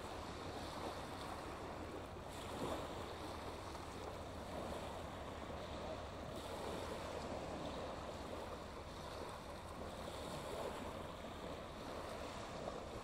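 Small waves washing in over a shingle beach: a steady wash of water over pebbles with gentle swells, no distinct splashes.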